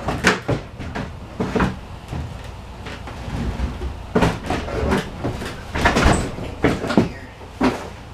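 Irregular knocks and clunks of power equipment being handled and moved about, a dozen or so short hits with no engine running.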